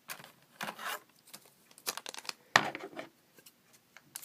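Pokémon trading cards and a foil booster-pack wrapper being handled: irregular crinkling, rustling and light scraping, with a louder crinkle about two and a half seconds in.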